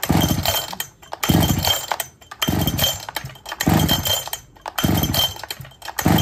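Falcon 73cc two-stroke chainsaw being pull-started: six rope pulls about a second and a quarter apart, each a short burst of the engine cranking over without catching, even with petrol poured into the cylinder.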